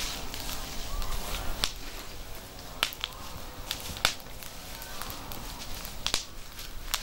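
Dry wood snapping: a handful of sharp, irregular cracks and pops over a low outdoor hiss.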